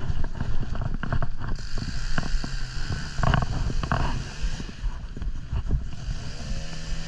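Two-stroke chainsaw running, with its steady engine note and a hiss setting in about a second and a half in, among irregular knocks and rustling.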